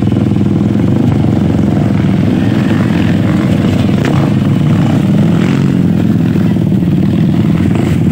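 Several single-cylinder trail dirt bike engines running together, loud and steady, with one bike revving up and down as it climbs the slope close by.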